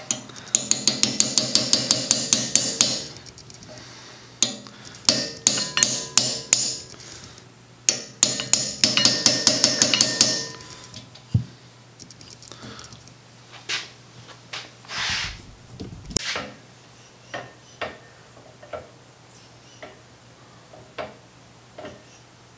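Ratchet wrench clicking in three quick runs of even clicks, about five a second, tightening nuts on a cast iron Singer treadle sewing machine base. After these come scattered light metal knocks and handling.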